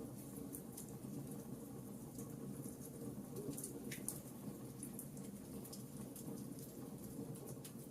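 Campfire crackling: many small scattered snaps and pops over a faint, steady low background, with one sharper pop about four seconds in.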